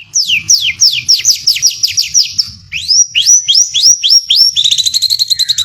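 White-rumped shama (murai batu) singing loud, clear whistles. It opens with a quick run of about ten downward-sliding notes, then several rising notes, and near the end breaks into a rapid, even trill of about a dozen notes a second.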